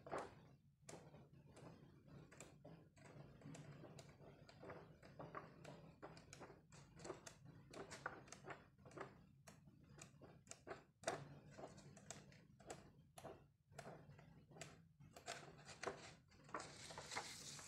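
Glossy coated-paper pages of a large hardbound photo album being turned one after another: quiet, irregular paper flicks and rustles, with a longer hiss of sliding paper near the end.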